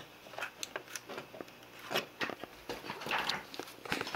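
Handling noises from pulling a USB SD card reader out of a computer and taking the SD card out: a quick run of small clicks, taps and scrapes with bits of rustling.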